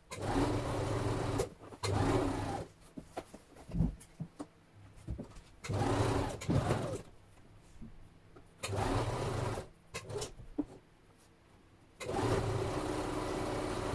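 Electric sewing machine stitching in short runs of one to two seconds, stopping and starting about six times as the fabric is guided under the needle.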